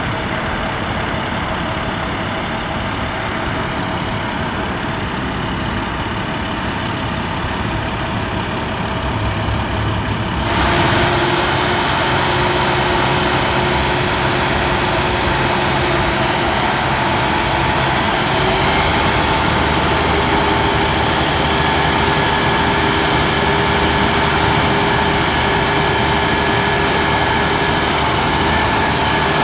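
An International 7500 crane truck's MaxxForce 10 diesel engine running steadily to drive the Elliott 1860 crane's hydraulics as the boom is raised and extended. About a third of the way in the sound steps up louder and a steady whine joins, changing pitch again a little later.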